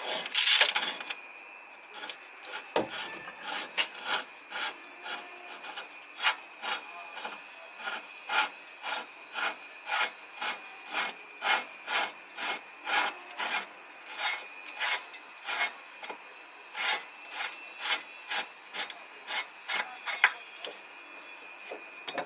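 Hand ratchet wrench unscrewing a long subframe bolt on a Volvo XC90, a short rasping stroke about twice a second as the wrench is swung back and forth.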